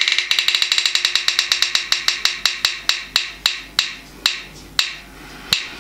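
Spin-the-wheel app on a smartphone ticking as its wheel spins: rapid clicks that slow down steadily as the wheel comes to rest, the last one near the end.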